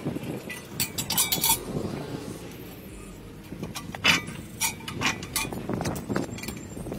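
Metal spanners clinking and scraping against the rusty fittings of an old air compressor as they are worked loose, in scattered sharp clicks over low handling noise. The loudest clink comes about four seconds in.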